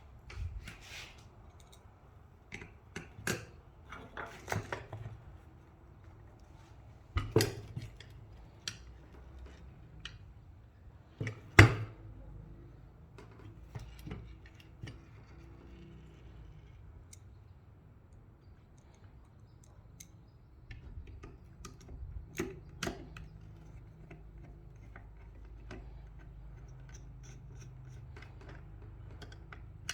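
Scattered small clicks, taps and knocks of metal and plastic roof-crossbar parts being handled while an end-cap screw is driven from underneath with an Allen key. The sharpest knock comes about eleven seconds in.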